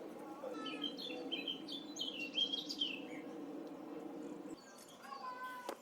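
Birds chirping: a quick run of high chirps for a couple of seconds, then a lower call near the end, over a steady low background.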